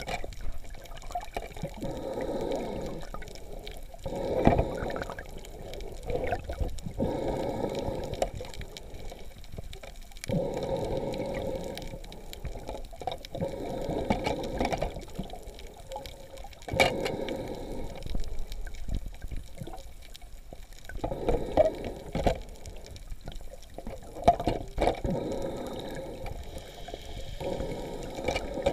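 Water sloshing and swishing heard underwater, muffled and surging every second or two as the water moves, with a few sharp knocks.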